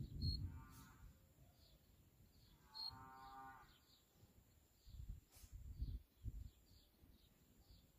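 A cow mooing faintly twice: a short call just under a second in, then a longer one about three seconds in. Gusts of wind rumble on the microphone at the start and again past the middle, while a small bird chirps repeatedly throughout.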